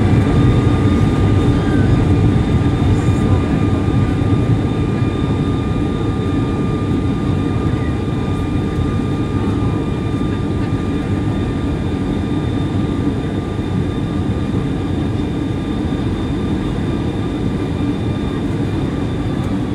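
Cabin noise of a Boeing 757-300 rolling out on the runway after landing: a heavy rumble with a steady high jet-engine whine over it. It gets gradually quieter as the airliner slows.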